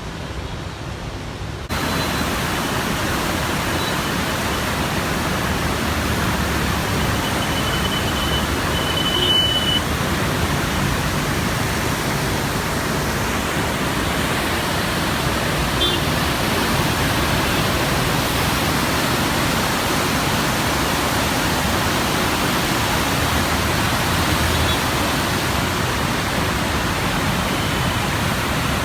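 Heavy floodwater rushing through the open gates of the Krishna barrage: a steady, even rush that gets louder about two seconds in and then holds.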